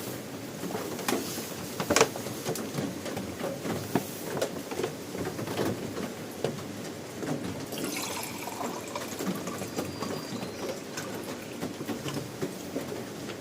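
Water being poured into a small camp cooking pot, with knocks of the cookware being handled and one sharp clank about 2 seconds in.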